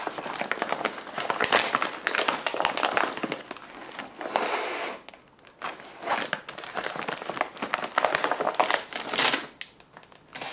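Thin plastic military ration pouch crinkling and rustling in uneven bursts as it is opened and its packaged contents are handled, with short lulls about halfway and near the end.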